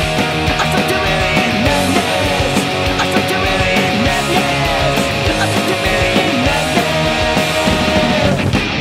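Punk rock band playing at full tilt: electric guitars and a drum kit with a singer's voice. A long held note rings through most of it and bends down just before the end.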